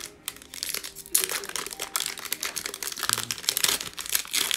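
Shiny foil wrapper of an NBA Hoops basketball card pack being torn open and crinkled as the cards are pulled out: a few small clicks, then dense crackling from about a second in.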